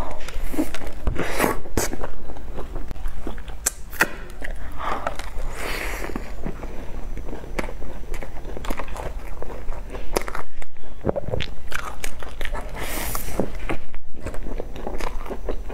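Close-up biting and chewing of cream puffs with a crunchy crumb topping: repeated crackling crunches of the crisp shell between softer chewing sounds.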